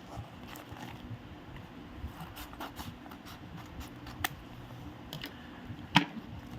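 Paper and plastic packaging rustling and crinkling as a mailed manila envelope is opened by hand, with scattered small clicks and one sharp click near the end.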